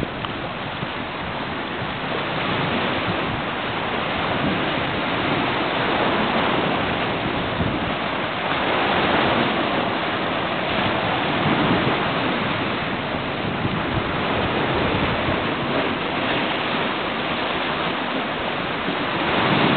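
Sea surf washing onto rocks: a steady rushing noise that swells gently every few seconds.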